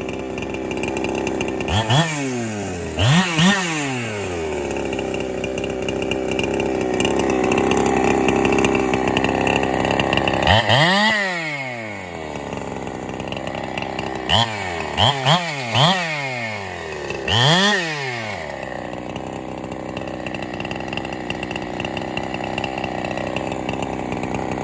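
Ported Holzfforma 372, a Husqvarna 372 clone two-stroke chainsaw that is still being broken in, running while cutting firewood. It is revved up quickly and back down about eight times, in clusters, with steadier running between.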